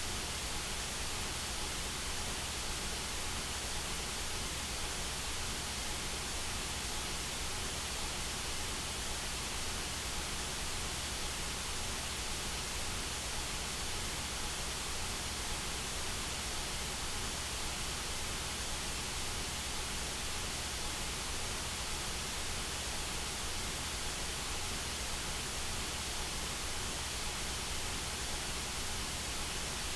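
Steady synthetic white noise: an even, unbroken hiss across all pitches that does not change.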